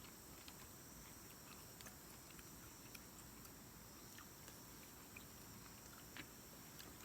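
Near silence: a faint steady high-pitched chirring of night insects, with scattered faint clicks.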